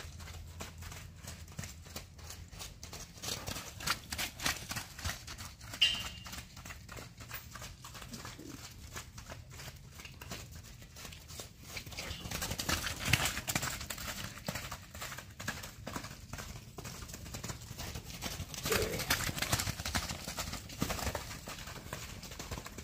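Hoofbeats of a horse circling on a longe line over wet, muddy dirt: a quick, continuous run of footfalls that swells louder three times.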